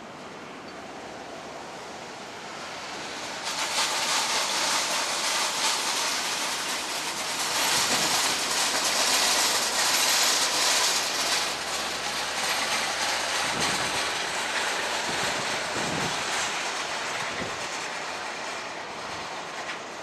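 Boeing 777-300ER's GE90-115B jet engines at takeoff thrust: a rushing jet noise that swells suddenly a few seconds in, is loudest around the middle, and slowly fades as the aircraft passes and climbs away.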